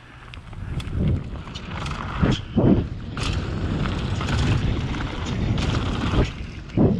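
Mountain bike ridden fast down a dirt trail: tyres rolling over dirt with wind on the microphone, and clicks and rattles from the bike throughout. Two louder surges, about two and a half seconds in and near the end.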